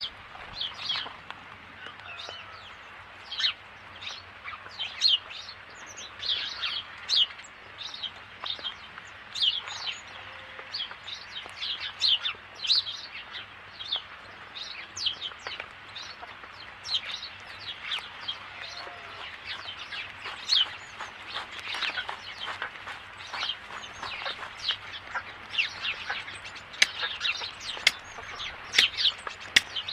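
Bird chirping: a steady run of short, high chirps, several a second.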